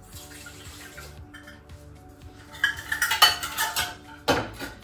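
Water poured from a steel measuring cup into a pressure cooker's metal inner pot, then metal cups, bowls and utensils clinking and clattering on the worktop, with a last louder clank near the end.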